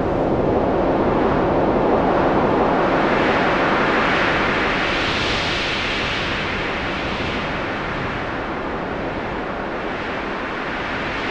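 Loud, steady rush of water and wind from a boat under way, slowly swelling and easing, with no clear engine note.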